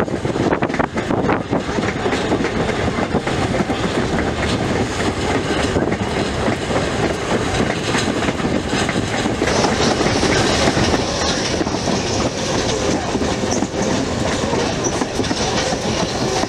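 Passenger coach rolling along the track, heard from an open window: a steady rumble of wheels on the rails with scattered clicks.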